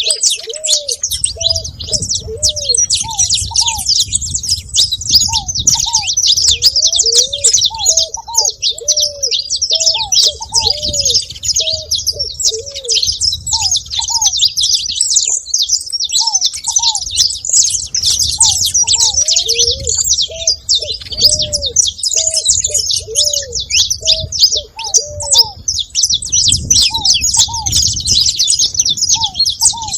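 A flock of saffron finches chirping continuously in a dense, high chatter, with ground doves giving short, repeated cooing notes underneath.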